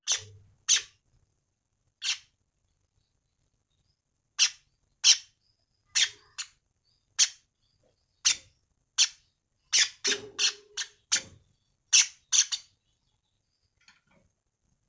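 A bird giving short, sharp single calls at uneven intervals, about eighteen in a row, some in quick pairs, before falling silent.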